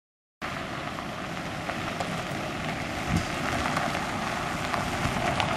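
Ford Focus sedan approaching on a gravel road: a steady crackle of tyres on loose gravel and a low engine rumble. The sound cuts in abruptly a moment in, then slowly grows louder as the car nears.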